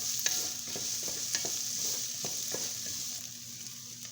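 Chopped carrots frying in oil with ginger-garlic paste, sizzling steadily as they are stirred in the pan, with a few sharp knocks and scrapes of the spoon against the pan.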